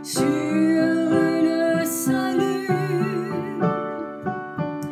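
Slow piano accompaniment of a French Christian song: sustained chords that change about once a second, with no lyrics sung.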